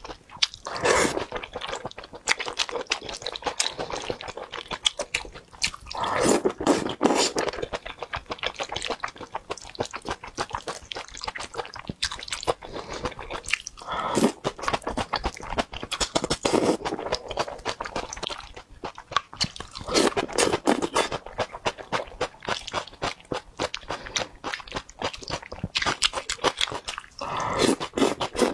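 Close-up eating sounds: wet chewing and mouth clicks while eating saucy wontons and noodles, with a louder slurp from the spoon every few seconds.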